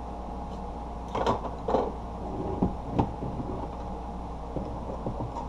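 Handling of a plastic radio-control transmitter case and small tools: two brief scrapes about a second in, then a sharp click a little later and a few faint ticks, over a steady low hum.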